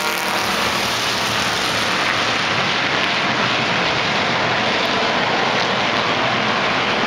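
Pack of thunder-class stock race cars running together around an oval track, many engines blending into one loud, steady noise.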